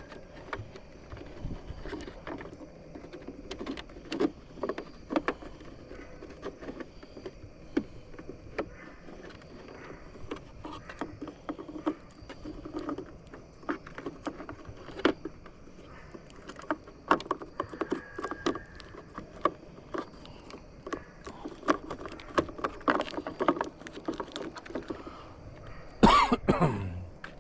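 Irregular small clicks, knocks and rattles of plastic light housings and wiring being handled and pushed into a truck's side-mirror housing. Near the end a single loud sound sweeps steeply down in pitch.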